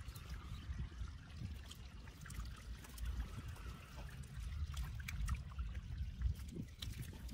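Water trickling and dripping, with scattered small splashes over a low rumble.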